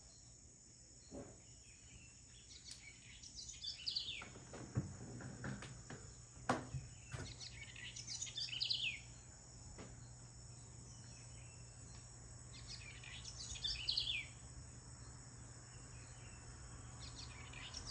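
A bird repeating a short, falling song phrase about every five seconds over a steady, high-pitched insect drone. A few sharp knocks come between about one and seven seconds in.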